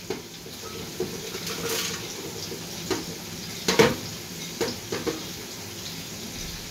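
Browned fried onions being scraped off a china plate and tipped into a blender jar: a handful of short clinks and knocks against the plate and jar, the loudest about four seconds in.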